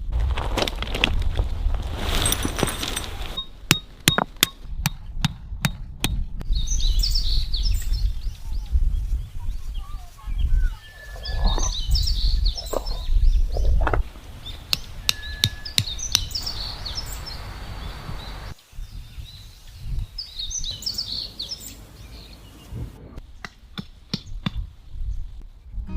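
Birds chirping in short clusters several times, over a steady low rumble and scattered knocks.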